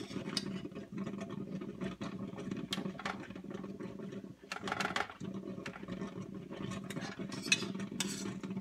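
Soft, scattered clicks and scrapes of crab cake mixture being scooped and shaped onto a metal pizza pan, with one brief louder scrape about halfway through, over a steady low hum.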